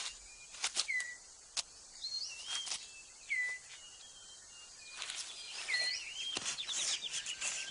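Rainforest birds calling: short, clear whistled notes, several dipping in pitch and then levelling off, with a few sharp clicks among them. Near the end a fast run of repeated notes comes in.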